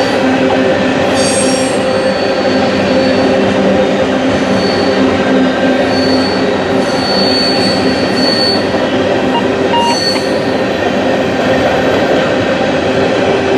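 Canadian Pacific freight train of empty grain hopper cars rolling past with a steady, loud rumble of wheels on rail. Brief high-pitched wheel squeals come and go several times, the longest a little past the middle.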